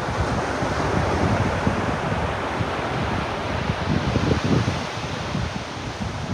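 Ocean surf washing steadily onto the beach, with wind buffeting the microphone in low rumbling gusts.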